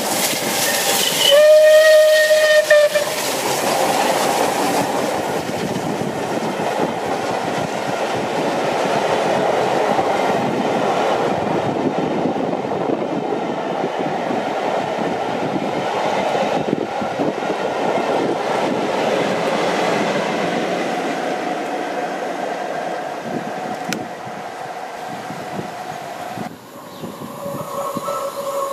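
Bulleid Battle of Britain class steam locomotive 34067 Tangmere sounds its whistle once, a single steady note lasting about a second and a half. The engine and its coaches then run through at speed, their wheels making a long, even rolling noise on the rails.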